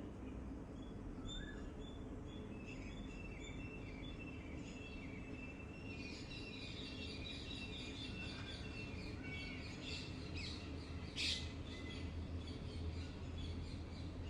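Several small birds chirping and twittering, the calls growing busier from about six seconds in, with one sharp, louder chirp near the end. A steady low background rumble runs underneath.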